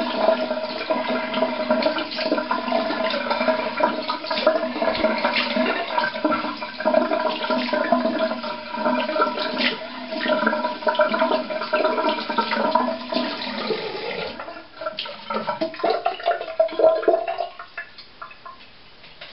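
Cold water tap running hard into a bathroom sink while the face is rinsed with splashing hands; the water shuts off about two seconds before the end.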